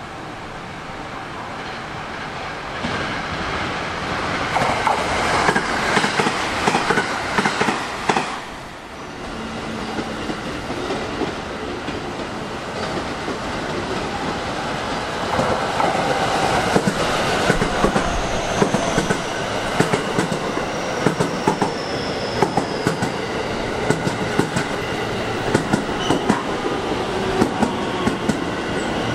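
Electric trains running through on several tracks. Wheel and running noise swells, dips sharply about eight seconds in, then builds again as a JR West electric multiple unit runs close past with a steady clickety-clack of wheels over rail joints.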